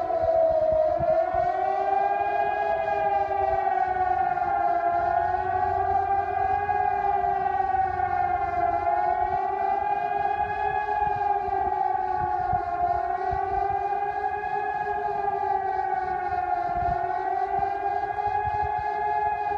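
Civil defence sirens sounding together in one long, held tone that wavers slowly up and down in pitch: the commemorative alert for the start of the 1974 Turkish invasion of Cyprus.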